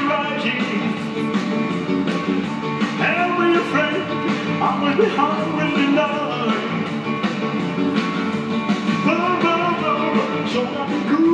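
Rock and roll song with singing and guitar, playing steadily without a break.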